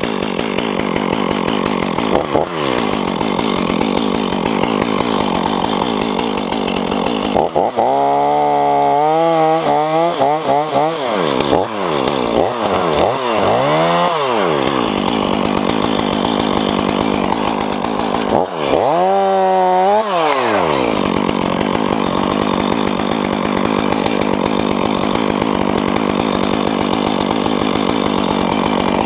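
Chainsaw running steadily, revved up and down in several quick swells about a third of the way in and again about two-thirds in, as when cutting wood.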